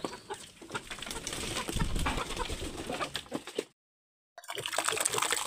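Hens clucking and scuffling about in a coop. The sound cuts out for a moment at an edit about two-thirds of the way through, then wet feed mash slops into a bamboo trough.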